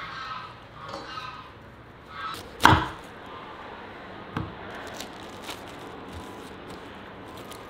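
Knocks on a wooden work surface while food is being prepared: one loud, sharp knock about two and a half seconds in, and a fainter one under two seconds later.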